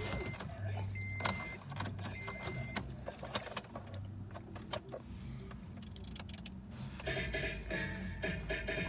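A car's warning chime beeping at a steady pace, about one beep every second, three times, with a few scattered clicks. Music with a beat starts about seven seconds in.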